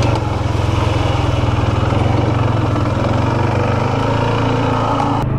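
ATV (quad) engine running steadily as the machine rides along, a continuous low drone.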